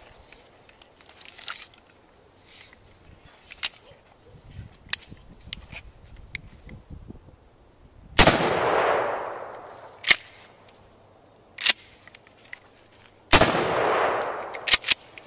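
Mossberg 500 pump-action shotgun: small clicks as shells are loaded, then two shots about five seconds apart, each followed by a long rolling echo. Sharp clacks of the pump being worked come between and right after the shots.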